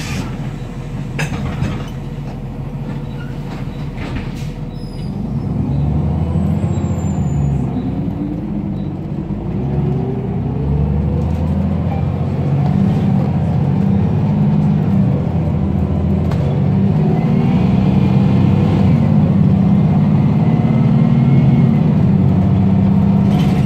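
Engine of a 2005 ElDorado National EZ-Rider II transit bus, heard from inside the cabin: a few sharp clicks in the first seconds while it idles, then from about five seconds in the engine note rises in steps with a rising whine as the bus pulls away, settling into a steady run.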